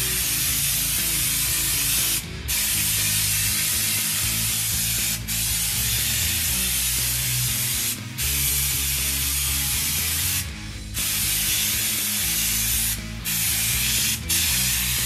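Compressed-air spray gun hissing steadily as it sprays LizardSkin spray-on sound deadener onto bare sheet metal. The spray stops briefly about five times where the trigger is let off, once for nearly half a second just after the middle.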